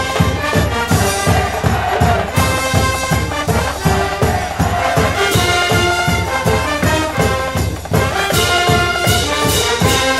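High school baseball cheering band playing a fight song: trumpets and trombones carry the melody over a fast, steady drum beat.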